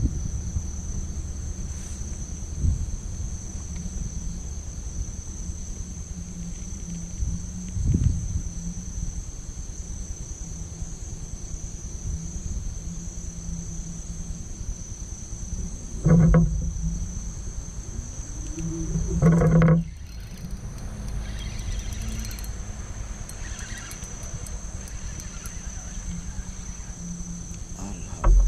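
Steady high chirring of night insects over a low rumble, with two brief louder noises a little past the middle, the second a short rising whirr, and a sharp knock at the very end.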